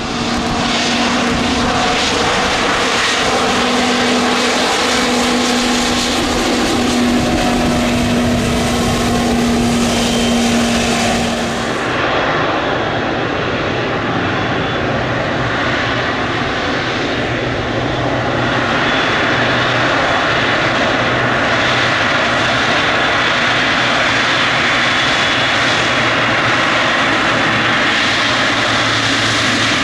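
Jet engines of an Airbus A320neo taxiing at low thrust: a steady whine over a held hum. About twelve seconds in, the sound cuts to the GE90 turbofans of a Boeing 777F freighter taxiing, a steady rushing jet noise with a deep hum underneath.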